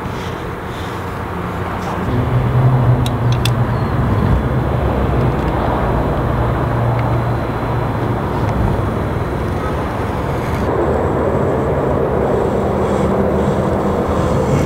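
A motor vehicle engine running steadily, getting louder about two seconds in, with a few light clicks shortly after.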